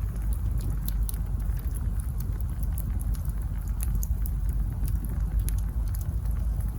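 Wood fire burning, with a steady low rumble and many small, irregular crackles and pops from the burning logs.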